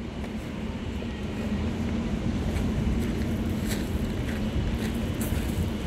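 Steady low rumble of a running vehicle engine with a constant hum, and a few faint clicks.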